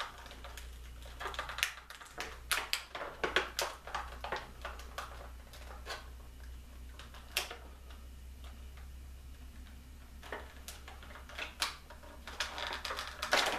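Hands unwrapping and prying open a plastic toy capsule: irregular sharp clicks and crinkles of plastic wrap and hard plastic. They come in a busy cluster over the first few seconds, a few single clicks follow, and they pick up again near the end.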